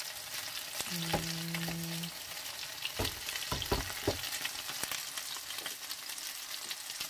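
Sausages sizzling and crackling as they fry in a little cooking oil in a non-stick pan. A brief steady low hum comes about a second in, and a few low knocks come around three to four seconds in.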